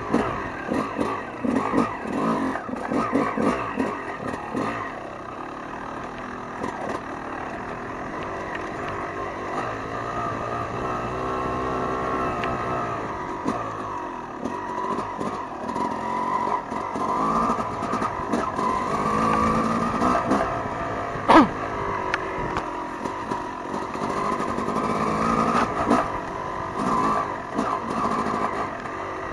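Off-road dirt bike engine heard from on board, its pitch rising and falling with the throttle as it rides a rough trail, with short knocks and rattles from the bumps. One sharp knock about 21 seconds in is the loudest sound.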